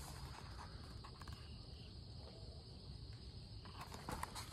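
Faint outdoor ambience: crickets trilling steadily at a high pitch over a low rumble, with a few soft rustles near the end.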